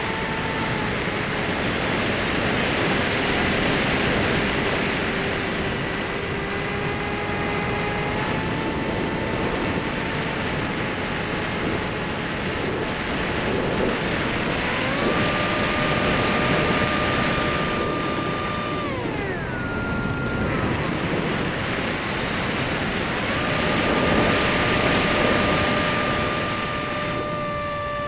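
The electric motor and propeller of a Bixler/Skysurfer foam RC plane whining in flight, with steady wind rush over the airframe. The motor's pitch changes with the throttle: it steps up a little past halfway, glides down a few seconds later, climbs back, and drops again at the very end.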